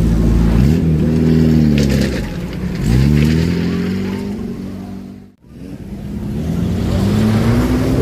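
Open-top tour jeep engine revving up twice, rising in pitch each time, then dying away almost to nothing about five seconds in before building up again.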